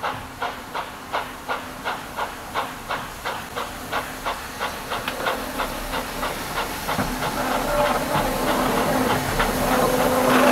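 Steam locomotive chuffing as it works a train, about three exhaust beats a second. The beats quicken and blur into a steady rumble, growing louder over the last few seconds as the train draws closer.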